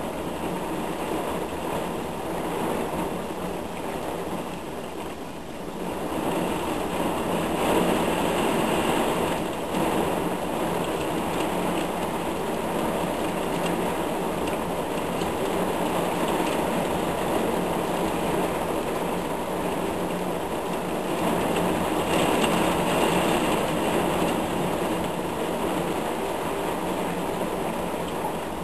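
Heavy rain pouring down in a thunderstorm: a steady rushing hiss that swells about six seconds in and again later on.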